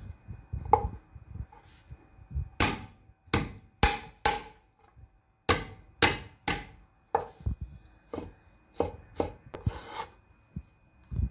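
Chinese cleaver chopping celery on a wooden cutting board: about a dozen separate sharp chops, unevenly spaced, then a short scrape near the end as the diced celery is gathered onto the blade.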